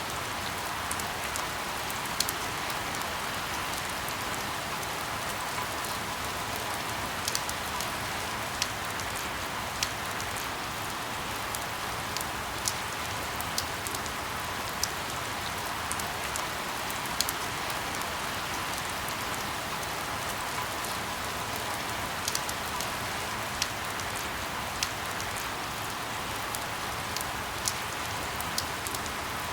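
Steady rain falling, an even hiss with sharp single ticks scattered irregularly through it.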